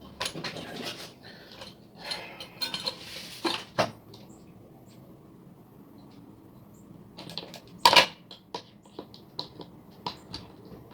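Small hand tools and drone parts clicking, scraping and clinking on a workbench during a repair, in two bursts of handling with a sharp click about eight seconds in.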